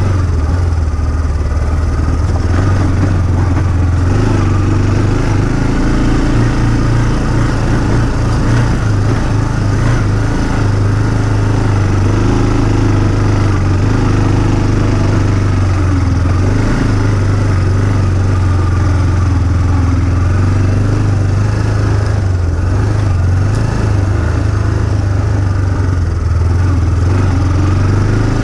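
Engine of a small off-road vehicle running steadily under way, its pitch wavering only slightly.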